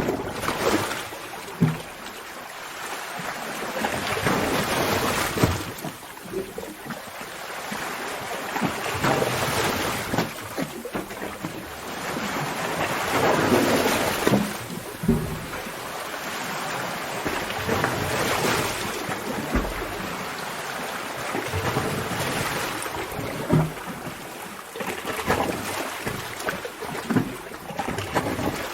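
Sea water surging and sloshing inside a sea cave, swelling and falling back every four or five seconds, with short splashes and slaps of water against rock.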